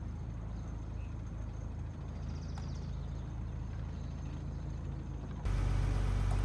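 A boat's inboard engine running steadily at low speed, a low, even drone. About five and a half seconds in it suddenly gets louder and fuller, as heard inside the pilothouse.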